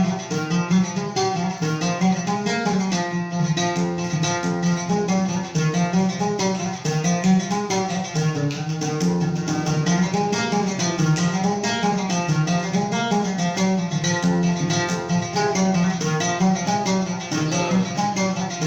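Instrumental interlude of a Yemeni song between sung verses: plucked string instruments play quick runs of notes over a steady low part.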